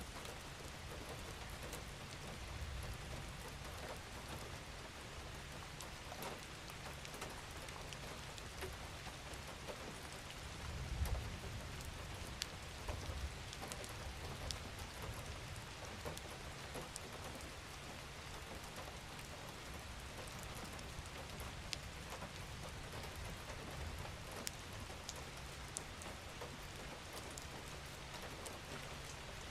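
Steady light rainfall, an even hiss with scattered small drop ticks over a low rumble. The rumble briefly swells about eleven seconds in.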